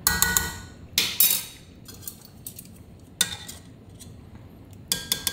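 A kitchen utensil clinking and knocking against a cooking pot as pieces of chorizo and meat are lifted out of the stew: a few sharp strikes with a short metallic ring, at the start, twice about a second in, once past three seconds, and a quick flurry near the end.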